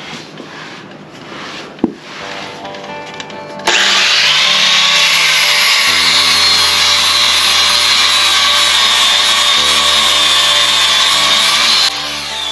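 Power grinder grinding down steel from a vehicle body mount: a loud, steady, high-pitched grind that starts about four seconds in and cuts off near the end.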